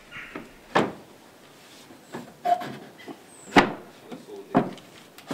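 Wooden wall boards knocking against each other and the frame as they are set into place by hand: a series of sharp wooden knocks, about one a second, the loudest about three and a half seconds in.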